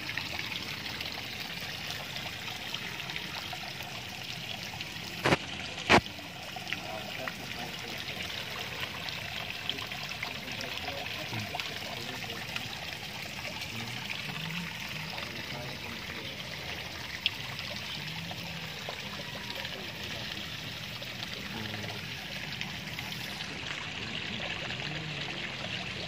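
Water pouring from a pipe spout into a koi pond, a steady splashing trickle. Two sharp knocks stand out about five and six seconds in.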